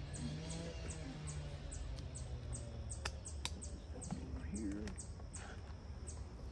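Outdoor farm ambience: a steady low hum, with a high, short chirp repeating evenly a few times a second and a few faint clicks.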